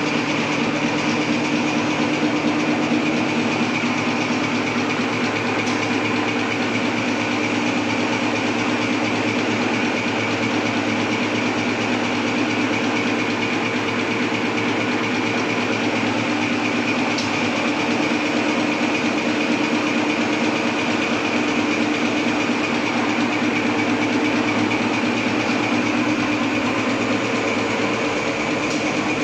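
Napkin tissue paper making machine running steadily: a continuous mechanical hum with a steady high whine over it.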